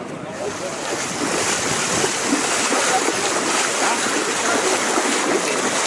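Fast-flowing floodwater rushing loudly and steadily, swelling about a second in.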